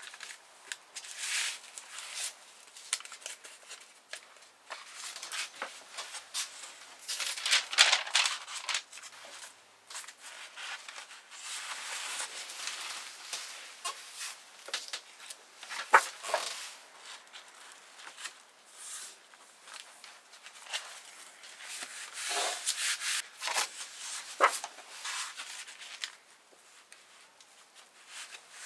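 Sheets of paper being handled by hand: sliding, rustling and rubbed flat as endpapers are folded and aligned, in irregular bursts with a couple of sharp taps.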